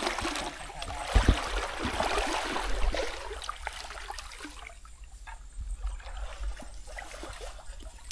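Shallow stream water rushing and splashing around wading legs, with a low thump about a second in. From about halfway the water is quieter, with small rustles and clicks as vegetable fern shoots are picked from the bank.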